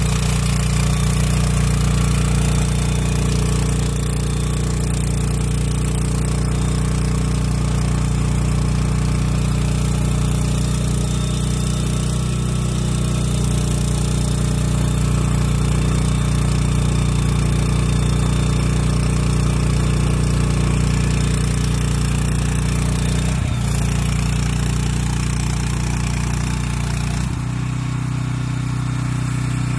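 Gasoline engine of an LWG250 230 A welding generator running steadily. A steady hiss reaches up into the highest pitches. The engine note dips briefly about 23 seconds in and changes about 27 seconds in, where the hiss fades.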